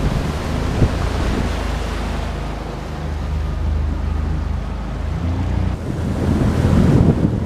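Outboard motor driving an aluminium boat at speed, with water rushing past the hull and wind buffeting the microphone; the wind rumble is the loudest part.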